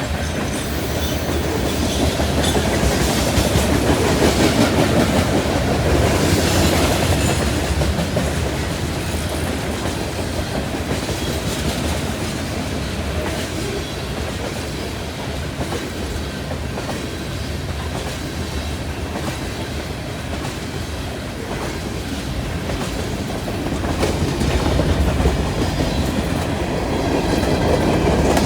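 Freight train cars rolling past at speed: a steady rumble and clatter of steel wheels on the rails. It grows louder near the end.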